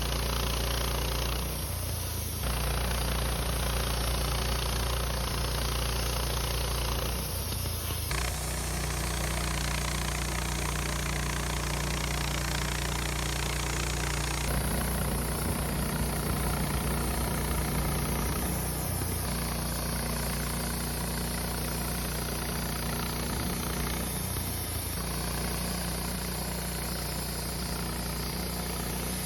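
Wood-Mizer LT15 portable band sawmill running steadily while sawing a Ponderosa pine log, its engine and band blade giving a steady mechanical drone. The tone shifts abruptly several times.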